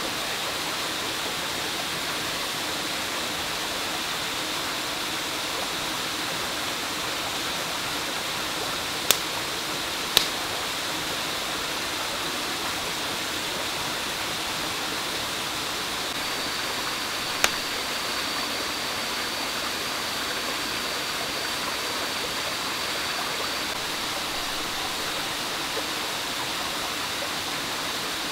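Wood campfire burning, with three sharp pops from the burning logs, two about a second apart and a third several seconds later, over a steady rushing hiss. A faint thin high whistle runs for several seconds in the second half.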